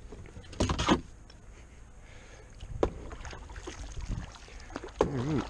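Kayak on the water: scattered knocks against the hull and light water sounds. A short wordless voice comes in near the end.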